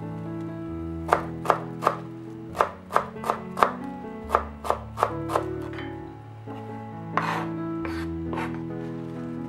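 Kitchen knife chopping fresh parsley on a wooden cutting board: a quick run of about a dozen sharp chops, roughly three a second, then a few more near the end. Soft background music plays underneath.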